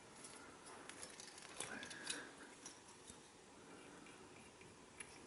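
Near silence, with a few faint light clicks and soft handling noises.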